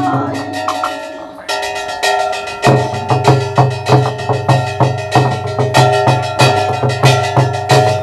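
Lakhon bassac theatre ensemble music: drums and ringing metal percussion. It starts quietly, and after a couple of seconds settles into a steady beat of about three strikes a second.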